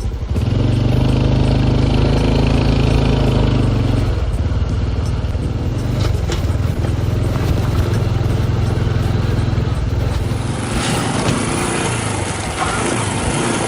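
Honda CT125 Hunter Cub's single-cylinder four-stroke engine running steadily while riding, a low even hum. A rushing hiss grows louder over the last few seconds.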